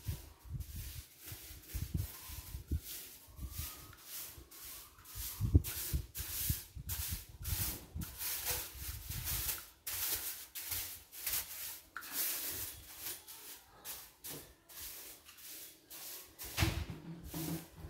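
A soft-bristled broom sweeping a ceramic tile floor: repeated swishing strokes, about two a second, with a few low bumps in between.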